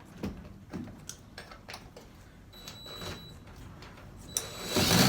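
Light, scattered knocks and clicks of hand work on wall framing, with a brief faint high whine around the middle and a louder rustling noise near the end.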